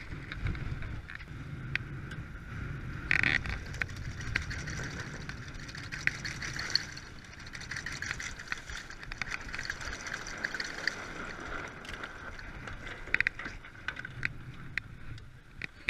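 Sea water rushing and splashing past the hull of a sailing yacht under way, with scattered small clicks and knocks and one louder knock about three seconds in.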